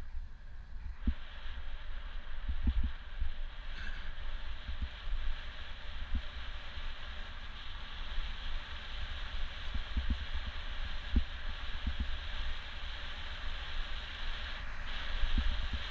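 Wind rumbling on the microphone of a camera riding on a moving bicycle, with irregular low thumps of buffeting over a steady rushing hiss of tyre and road noise.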